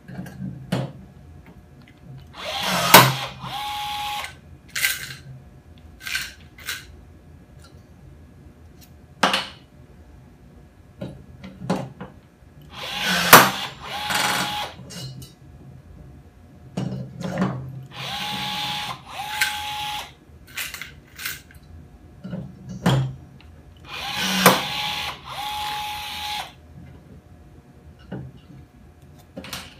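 Cordless rivet gun setting blind rivets through the gussets of a robot chassis frame: four short whirring runs of its motor, each with a sharp snap as the rivet's mandrel breaks off. Light clicks of handling come in between.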